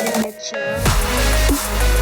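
Electronic dance background music. After a brief dip, a heavy bass comes in about three-quarters of a second in, with deep bass hits that slide down in pitch.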